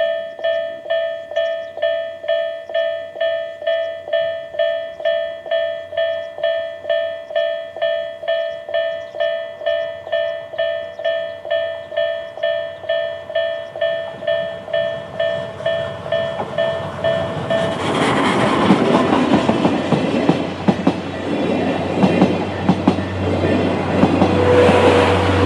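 Japanese level-crossing electronic warning bell (Tobu type A sound) dinging about twice a second. About two-thirds of the way through, a steam-hauled train (C11 steam locomotive with a brake van and passenger coaches) passes over the crossing, and its rolling and rail clatter largely drowns the bell.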